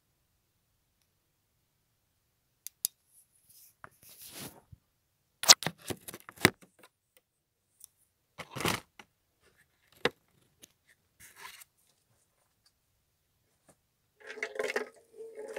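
Handling noise: scattered clicks, sharp knocks and rustling as the phone and a ukulele are moved about, with quiet gaps between. Near the end a ukulele string starts to ring.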